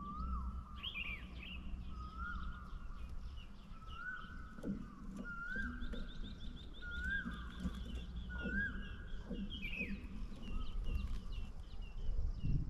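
Several birds calling outdoors: one repeats a call that rises and then holds, about every second and a half, while other birds add higher chirps and a fast, even trill through the middle. A low steady background noise runs underneath.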